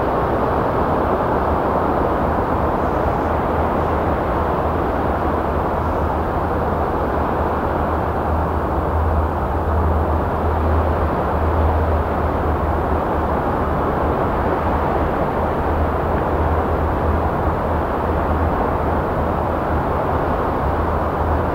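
Sea surf breaking on a shallow sandy beach: a steady, continuous rush of waves with a deep low rumble, without separate wave crashes standing out.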